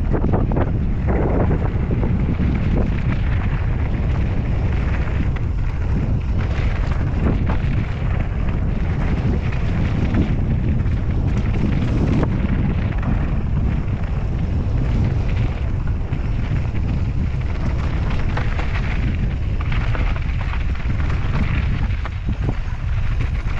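Wind buffeting the action camera's microphone on a fast mountain-bike descent, a steady heavy rumble, with the tyres running over loose gravel and short knocks and rattles from the bike throughout.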